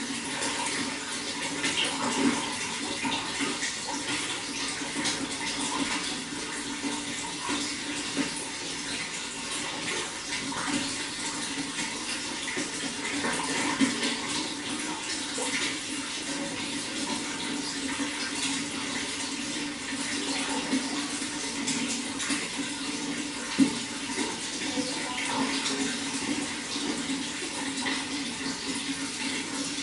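Running water flowing and splashing steadily, with a few brief louder moments.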